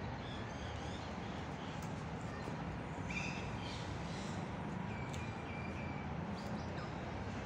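Outdoor farmyard ambience: a steady low background rumble with a few faint, short bird calls, about three seconds in and again around five seconds.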